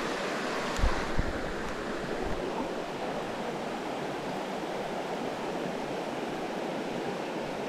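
Small stream rushing steadily over rocks, with a few soft low bumps in the first couple of seconds.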